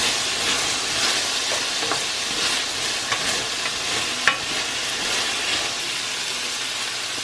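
Sugar snap peas and red bell pepper sizzling in hot oil in a stainless steel pan as they are stirred with a spatula, with a few light clicks of the spatula against the pan, the sharpest about four seconds in.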